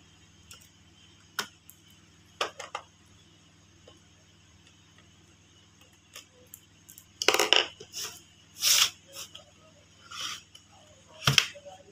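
Scattered clicks, clinks and scrapes of plastic and metal as an Asus X555L laptop is taken apart by hand, a few sharp clicks early, a run of longer scraping bursts from about seven to nine seconds in, and a single solid knock near the end.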